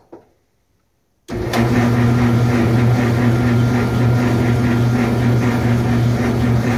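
Samsung dryer's motor starting abruptly and running with a loud, steady electrical hum over its running noise, in air-fluff mode with no heat. The motor is drawing far too much current, as much as 30 amps on L1 against a normal 3–5 amps: the sign of a failing dryer motor.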